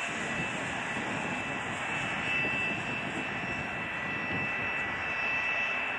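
Jet airliner engines running steadily: a broad rumble with a thin high whine held on top.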